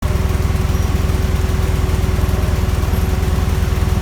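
Machinery at an oxygen gas plant running steadily, with a rapid, even low throb under a constant hum.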